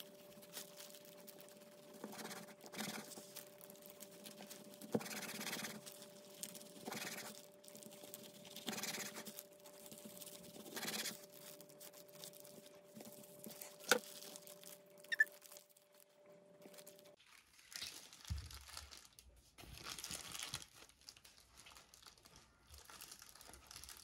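Kitchen knife sawing through a kimbap roll wrapped in dried seaweed on a wooden cutting board: a soft crinkly crunch about every two seconds, with a couple of sharp taps of the blade on the board. A faint steady hum runs underneath and stops about two-thirds of the way through.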